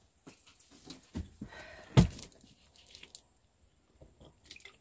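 Scattered knocks and clunks of firewood being handled and split, the loudest a single heavy thump about two seconds in.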